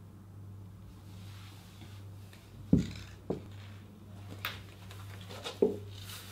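Hunter rubber wellington boots stepping onto a hard floor: about four dull thuds, the loudest about three seconds in and another near the end.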